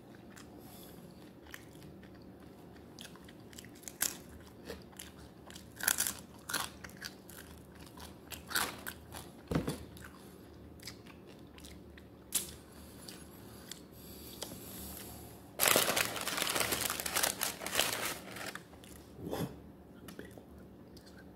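Chewing of crispy fried chicken wings close to the microphone: scattered wet mouth clicks and small bites, then a loud stretch of crunching about two-thirds of the way in that lasts a couple of seconds.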